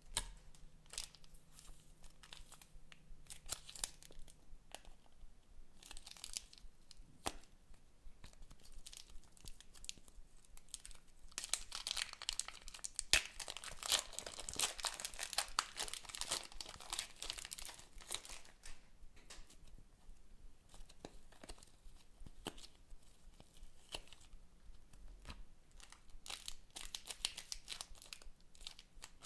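Thin plastic bags crinkling, crackling and tearing as fingers squeeze them and peel them away from pink slime and foam beads. Many small crackles throughout, thickest and loudest for several seconds in the middle.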